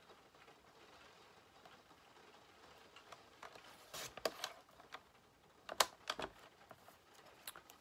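Paper trimmer in use on sheets of craft paper: a few sharp clicks and taps of the trimmer and the paper being set against its guide, in small clusters about four seconds in and again around six seconds.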